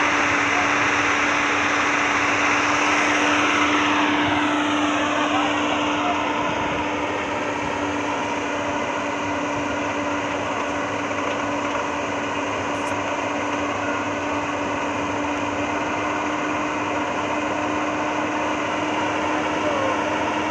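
Hyundai crawler excavator's diesel engine and hydraulics running, a loud steady drone with a whine; a few seconds in, its higher tones glide down and settle at a lower pitch.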